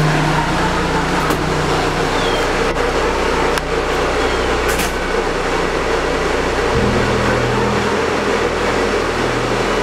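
Steady mechanical running noise: an even noise with a low hum beneath it that shifts in pitch about two-thirds of the way through.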